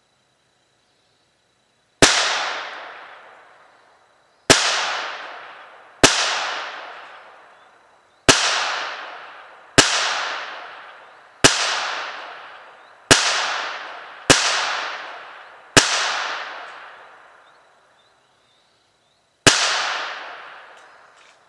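Ten single shots from a Ruger .22 semi-automatic pistol, fired slowly one at a time, each a sharp crack followed by about two seconds of echo dying away, with a longer pause before the last shot.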